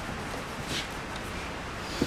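Quiet workshop room tone with a couple of faint handling sounds, soft taps or rustles, as a cordless drill/driver is lifted away from a fridge control panel after backing out a screw.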